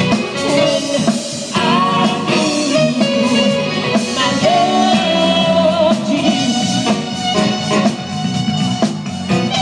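A live band playing with a woman singing, heard from among the audience: held, wavering melody notes over keyboards and a drum kit.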